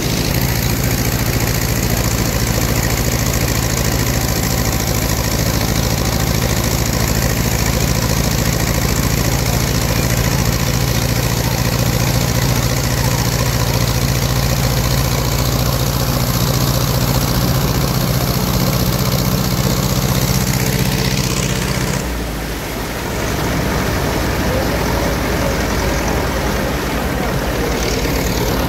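Tractor engine running steadily while driving through floodwater, with the rush and splash of churned water. About three-quarters of the way through, the engine's low hum drops away and the level dips briefly.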